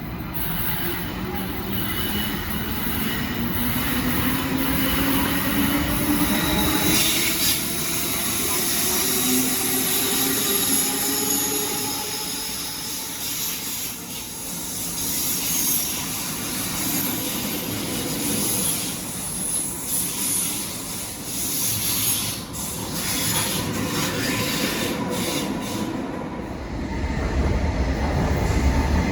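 Electric train moving through the station, its motor whine rising slowly in pitch as it gathers speed, with high wheel squeal and knocks of the wheels over the rail joints.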